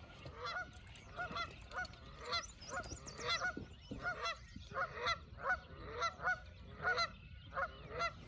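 A flock of geese honking, one short call after another at about two or three a second, some calls overlapping.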